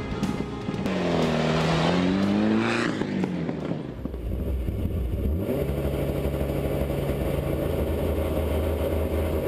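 Mitsubishi Lancer Evolution IX rally car's turbocharged four-cylinder engine: its pitch dips and climbs briefly, then it settles into a steady idle, heard from inside the cabin, about halfway through.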